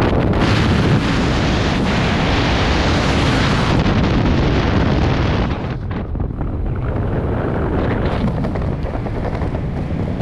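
Freefall wind blasting over a helmet-mounted action camera's microphone, a loud rushing roar. The high hiss fades about four seconds in and the roar drops and thins a little later.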